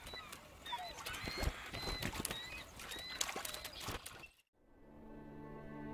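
Eagles calling in short, high, rising chirps, mixed with scattered clicks and knocks. The calls cut off abruptly about four and a half seconds in, and soft bowed-string music begins.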